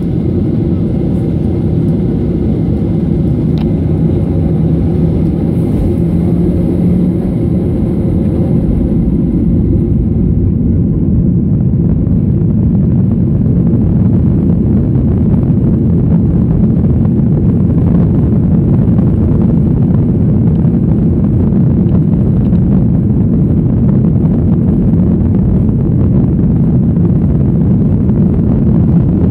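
Boeing 737-800's CFM56 jet engines and rolling noise heard from inside the cabin: a steady low rumble that grows gradually louder as the jet lines up and accelerates on its takeoff roll.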